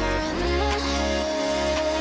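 Background music: a pop-style track with a steady bass and a sustained, gliding melody line.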